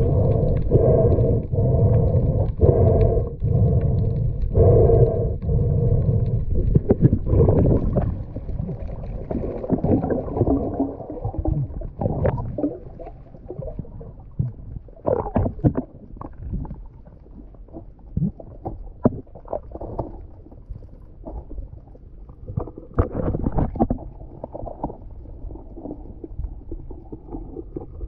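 Muffled underwater sound picked up by a camera in its waterproof housing: a low rumble of water movement that pulses about once a second for the first few seconds, then grows fainter. Scattered knocks and scrapes follow as a wooden stick, a mesh net and gloved hands work on the seagrass bed next to the camera.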